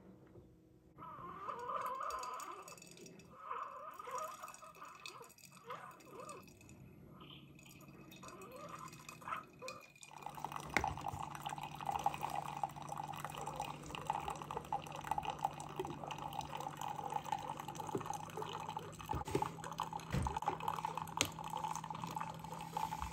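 Keurig single-serve coffee maker brewing. For the first ten seconds there are irregular, quieter sounds. From about ten seconds in the machine hums steadily while a thin stream of coffee pours into a ceramic mug.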